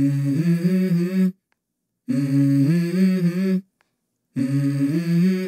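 Background music: a short wordless hummed melody, heard three times with brief silences between.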